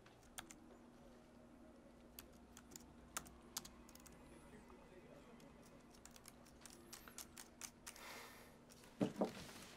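Typing on a MacBook laptop keyboard: faint, irregular key clicks over a low steady hum. Near the end there is a brief rustle, then two louder dull knocks.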